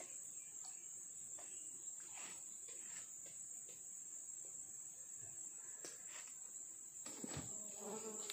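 Insects droning steadily at one high pitch, with scattered faint clicks and knocks that grow busier near the end.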